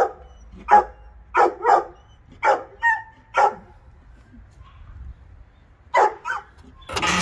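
A dog barking in short single barks: about seven in the first three and a half seconds, then a pause, then two more about six seconds in.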